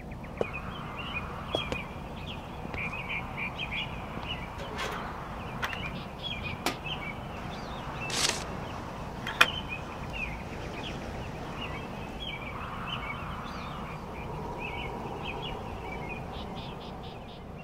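Small birds chirping continually over a steady outdoor ambience, with a few sharp clicks in the middle and one brief swish about halfway through.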